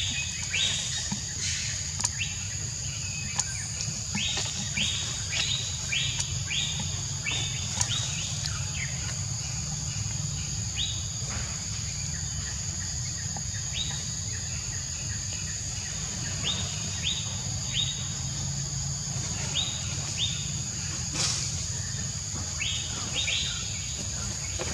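Outdoor ambience of a steady high insect drone with a bird chirping repeatedly, a quick run of notes in the first several seconds and scattered ones after, over a low steady hum.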